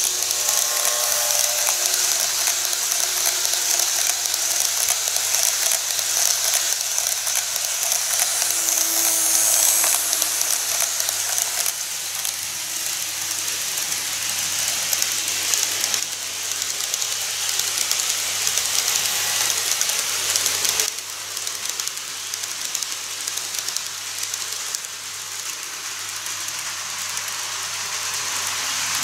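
N-gauge model electric trains running on the layout's track: a steady hiss of wheels and motors with light clicking over the rail joints. A car runs close by at first, and the sound drops a little about two-thirds of the way through.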